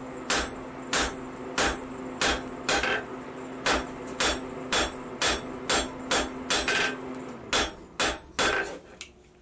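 A hand hammer forging a red-hot bar of 3/8-inch round spring steel on an anvil, drawing it to a rough point. Steady blows come about two a second with the anvil ringing on between them, and the blows come quicker near the end.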